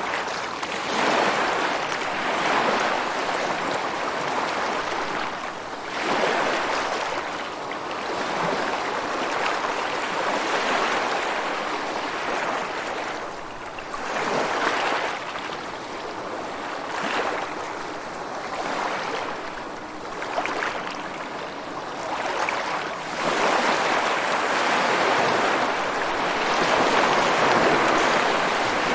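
Ocean waves breaking and washing up, a steady rushing hiss that swells and eases in surges every few seconds, loudest over the last several seconds.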